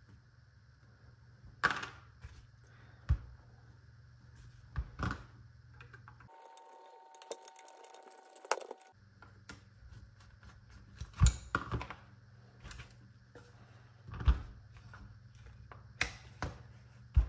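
Scattered sharp clicks and knocks of a Baikal double-barrelled shotgun's wooden stock and metal action being handled and worked with a screwdriver on a rubber bench mat, the loudest about a second and a half in and twice more later. For about three seconds in the middle the steady hum drops out and a faint steady two-note tone is heard.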